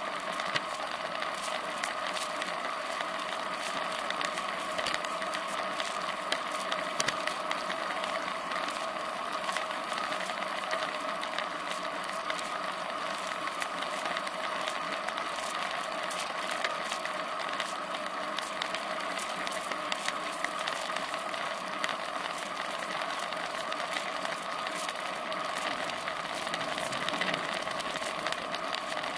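Riding noise of a road bicycle picked up by a rear-facing seatpost camera: a steady hum of tyres and air with frequent small rattling ticks from the mount shaking over the road.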